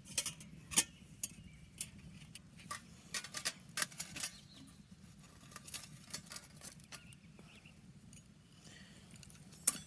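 Light clicks and taps of a camping stove being set up and handled, thickest in the first four or five seconds, with one sharp click near the end.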